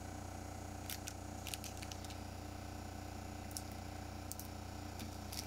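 Pioneer CLD-2950 LaserDisc player running: a steady low hum, with a handful of sharp clicks and ticks scattered through it.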